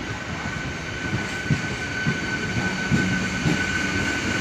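Passenger train coaches rolling past along a station platform: a steady rumble of wheels with irregular knocks, over a steady high whine, growing a little louder.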